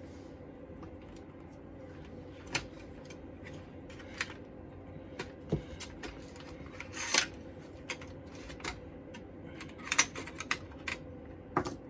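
Scattered clicks and taps of small objects being handled on a workbench, over a steady low hum.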